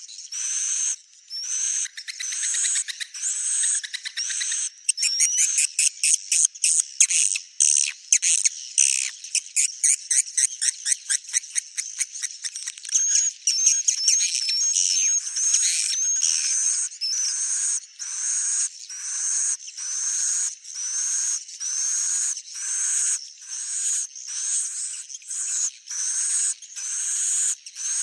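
Swiftlets (walet) calling: short chirping calls repeated a little more than once a second, with a run of rapid chattering calls a few seconds in and a warbling trill near the middle. A swiftlet call recording of the kind played to lure the birds to a nesting house.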